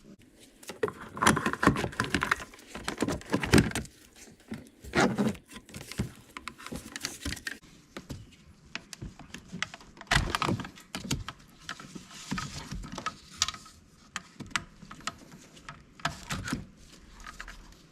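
Plastic door-trim parts being worked loose with a plastic pry tool: irregular clicks, knocks and scrapes as the door's control-panel clips are pried apart and its wiring connector is handled.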